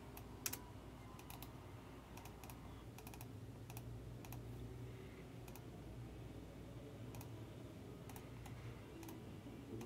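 Faint, scattered clicks of a computer mouse and keyboard, about a dozen spread irregularly, over a low steady hum.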